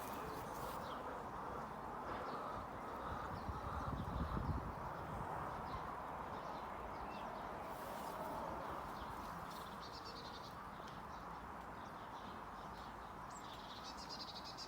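A flock of hens clucking and murmuring steadily, with a gust of wind buffeting the microphone about four seconds in.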